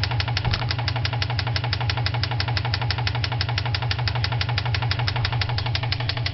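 2004 Subaru Impreza WRX's turbocharged flat-four engine idling with a steady, rapid knock from inside the engine, about nine knocks a second.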